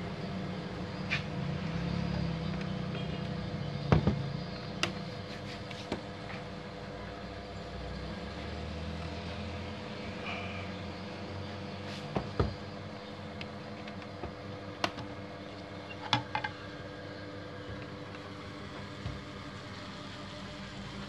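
Scattered sharp clicks and knocks of a plastic copier cartridge unit being handled, over a steady background hum.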